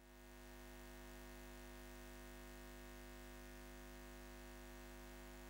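Near silence: a faint, steady hum of several held tones that fades in at the start.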